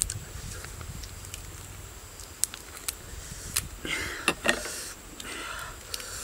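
Handling and eating sounds: a few sharp clicks and taps as grilled fish is picked apart with a knife and fingers, with short wet smacking noises.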